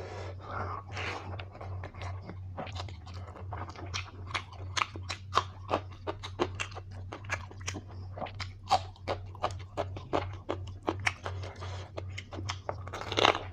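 Close-up chewing and mouth sounds of a person eating mutton curry with rice: many quick irregular clicks and smacks, with one louder, longer sound near the end. A steady low hum runs underneath.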